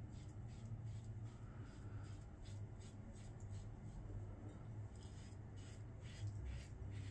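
Double-edge safety razor with a Derby Premium blade scraping through stubble on a lathered cheek: a run of short, faint strokes, a few a second.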